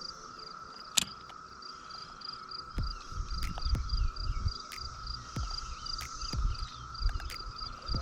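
Insects chirping steadily: an evenly pulsed, high chirp over a constant buzz. There is a sharp click about a second in, and from about three seconds on a low, uneven rumbling noise comes and goes.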